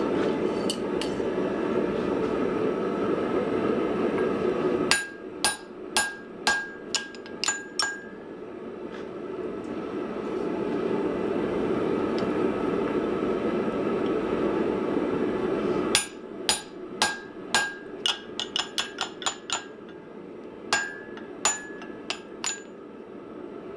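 Hand hammer blows ringing on steel as a slitting punch is driven into the hot hammer head to open its eye: one run of about eight strikes, then a faster run of some twenty. Between the runs a steady roar fills the background.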